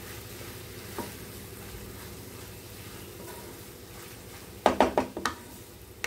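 Grated raw mango frying in a pan with a faint steady sizzle as a spatula stirs it. About three-quarters of the way through, the spatula gives a quick cluster of four or five sharp knocks and scrapes against the pan.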